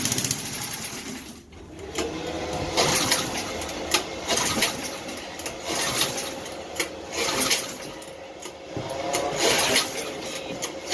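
Small single-cylinder riding-mower engine catching and running rough for several seconds, then dying out near the end: it runs until it doesn't and won't keep going.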